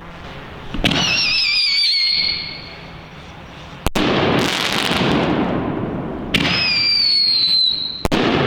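Winda Tank Busters firework shells going off with sharp bangs, four in all. Two of the bangs are followed by a wavering whistle that slides down in pitch for over a second.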